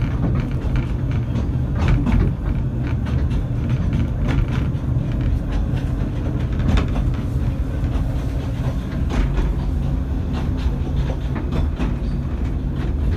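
Narrow-gauge railway carriage running along the track, heard from inside: a steady low rumble with irregular clicks and knocks from the wheels and rail joints.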